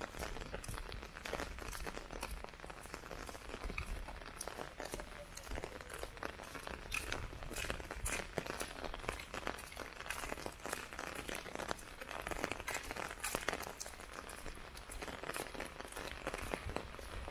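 Heavy rain falling, a dense, irregular patter of drops.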